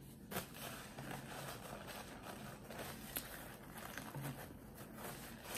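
Brown paper napkin crinkling and rustling faintly as it is handled and pressed to the mouth, with scattered small crackles and one sharper crackle about three seconds in.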